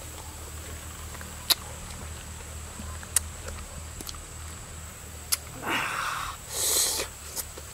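Ripe jackfruit being eaten by hand: a few single sharp lip smacks, then, about two-thirds of the way in, two short wet tearing sounds as a sticky, stringy pod is pulled apart and bitten.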